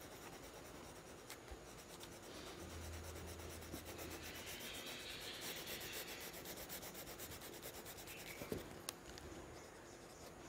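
Faint scratchy rubbing of an oil pastel stroked back and forth across paper while colouring in. It swells a little in the middle, and there are a couple of light clicks about eight and a half seconds in.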